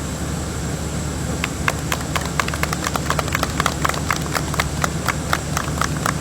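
Many press camera shutters clicking rapidly and irregularly, starting about a second and a half in, over a steady low hum.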